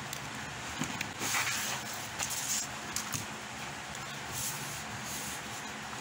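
Clear plastic sleeve crinkling and printed paper sheets rustling as they are pulled out and handled, in irregular short bursts over a steady low hum.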